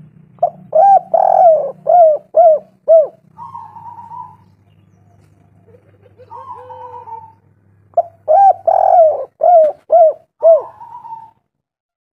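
Spotted dove cooing: two loud phrases of about six short, falling coos, each ending in a longer level note. A softer call comes between the two phrases.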